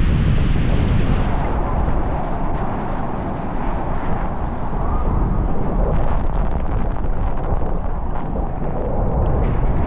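Storm wind buffeting the microphone over rushing water, a loud steady low roar; the higher hiss drops away about a second and a half in.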